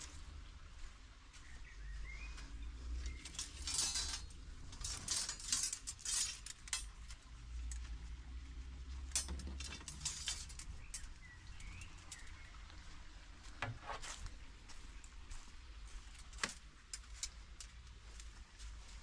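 Light clatter and rustling as thin metal spiral plant stakes and rods are gathered up from the ground. A bird chirps faintly twice.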